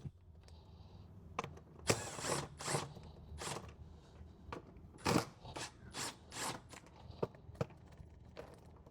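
Hand ratchet wrench clicking in short, irregular bursts while car body bolts are worked loose, with scattered clinks of tool handling.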